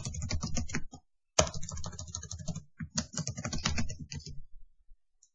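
Typing on a computer keyboard: a quick run of keystrokes, a brief pause about a second in, then a second, longer run that stops about four seconds in.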